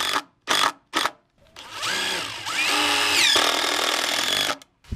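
Power drill running in short on-off bursts, its motor whine rising and falling as it spins up and slows, then a steady run of about two seconds. A single sharp knock near the end.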